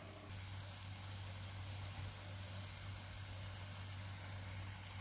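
Steady low hum with a faint even hiss; no distinct event.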